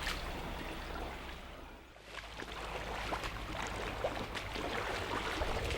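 Floodwater sloshing and trickling, with a few light knocks and clicks, briefly dropping away just before two seconds in.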